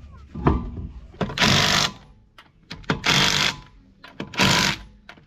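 Ratchet strap being tightened: three strokes of the ratchet handle about a second and a half apart, each a short rattling burst of clicks.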